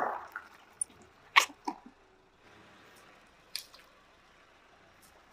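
Sharp pops and cracks of plastic containers and liquid-filled bags bursting under a car tyre, several short ones scattered through, the loudest about a second and a half in.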